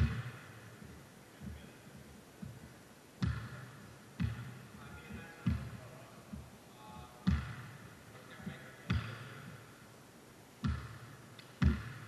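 Basketball bouncing on a gym floor during play: about eight separate thuds at irregular intervals, each with a short echo in the hall.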